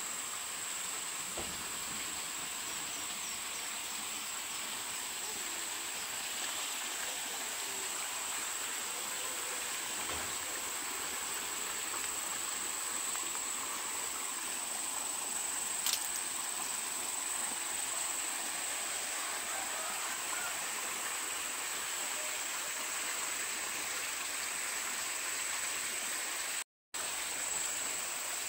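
Steady outdoor garden ambience: a high, unbroken insect drone over an even hiss. One sharp click comes about halfway through, and all sound cuts out briefly near the end.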